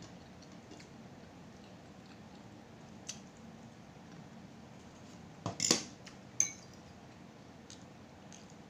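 Tableware sounds from a meal: a few sharp clicks and clinks of a metal utensil against a plate. The loudest come as a quick cluster a little past halfway, followed by one ringing clink.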